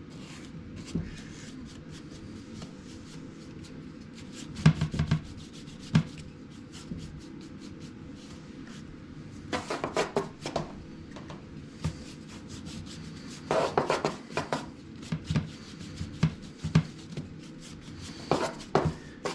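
Stain being worked onto the wood of a machinist's tool chest: short clusters of rubbing and scrubbing strokes with a few light knocks, spaced a few seconds apart, over a steady low background hum.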